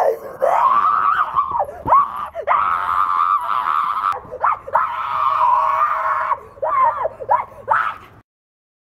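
A boy screaming: three long screams of about a second and a half each between shorter yelps, breaking off abruptly near the end.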